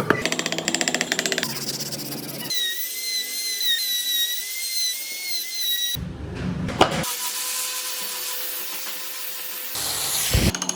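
Small hand-held power tools working wood in a few short, abruptly cut segments. Near the middle a high whine wavers in pitch, and later a steadier hum takes over.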